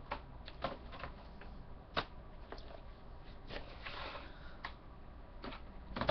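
Scattered light clicks and taps with a short stretch of rustling about four seconds in: handling noise from someone moving about and handling objects close by.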